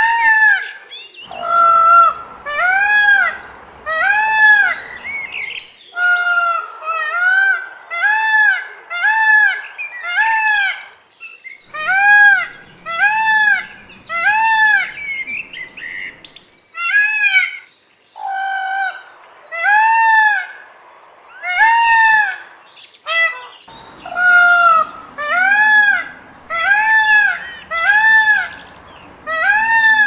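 Indian peacock (male Indian peafowl) calling over and over: loud arched notes that rise and fall in pitch, about one a second, in runs of four to six with short breaks between.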